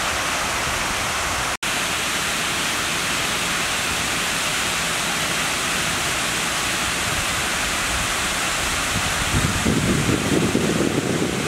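Water spilling over a long stone weir, a steady rushing. The sound cuts out for an instant about a second and a half in, and a rougher, lower rushing joins in near the end.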